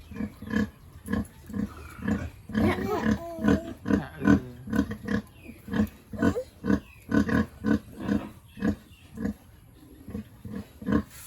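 Pigs grunting in a quick, steady series of short grunts, about two a second. About two to four seconds in, higher, wavering squeals join them.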